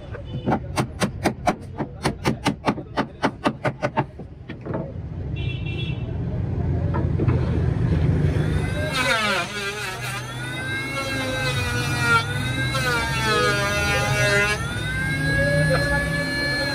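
Hammer blows on wood in a quick even run, about four a second, for the first four seconds. Later an electric hand planer runs, its motor whine dipping in pitch and rising again as it cuts along a plank.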